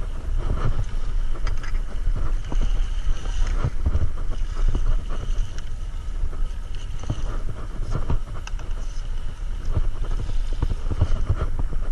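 Wind buffeting the microphone over surf, with water slapping and splashing against a paddleboard in scattered knocks.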